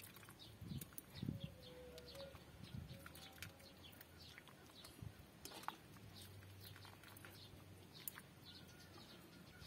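Faint birds chirping, many short high chirps scattered throughout, with a few soft low thumps in the first few seconds.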